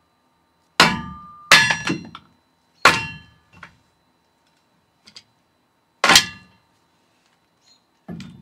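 A hammer strikes a log set in a cast steel kindling splitter, driving it down onto the splitter's blade. There are about five hard, unevenly spaced blows with lighter taps between, each ending in a short metallic ring.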